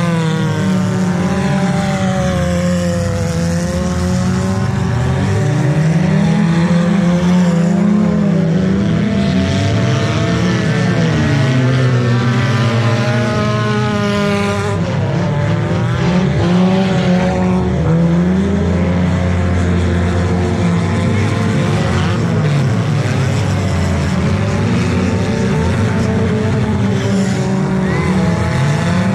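Several junk race cars' engines running hard at once, their pitches overlapping and rising and falling as the drivers rev up and back off.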